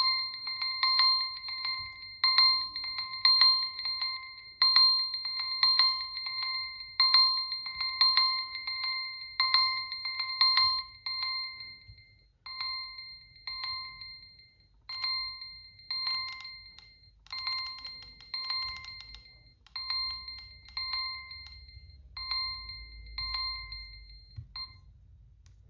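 Smartphone alert tone: short bell-like beeps on one pitch, in pairs about a second apart, the pair repeating every couple of seconds. It drops in loudness about eleven seconds in and stops near the end.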